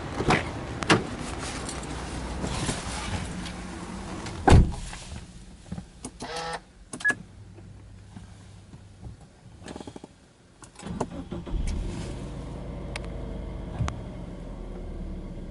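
A car door shuts with a thump about four and a half seconds in, and a short chime sounds. About eleven seconds in, the starter cranks briefly and the Subaru Legacy B4 2.0GT DIT's 2.0-litre turbocharged flat-four catches, then runs at a steady fast idle of about 1,700 rpm just after starting.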